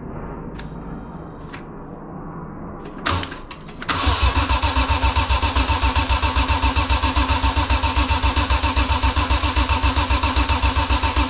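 BMW E46 M3's S54 straight-six turning over on the starter without firing, cranked with the fuel pump fuse out to prime the engine with oil. After a brief clunk, the cranking starts about four seconds in as a fast, even beat.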